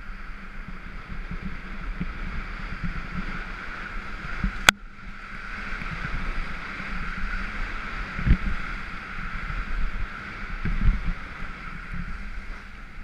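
Skis sliding over snow with a steady hiss, wind buffeting the microphone, and low thumps as the skis ride over bumps. A single sharp click about a third of the way in.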